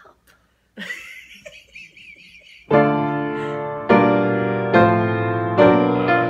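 Piano chords struck one after another, about one a second, each left ringing, starting loudly near the middle; before them a brief high wavering sound.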